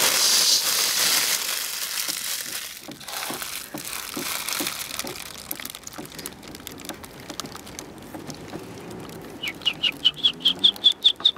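A plastic wrapper crinkling loudly at the start, fading over the next few seconds. Near the end a bird starts a rapid series of short, high chirps, about five a second.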